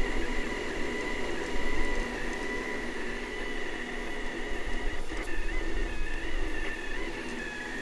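FDM 3D printer printing: its stepper motors whine in a steady high tone that steps slightly in pitch as the print head moves, over a steady low hum.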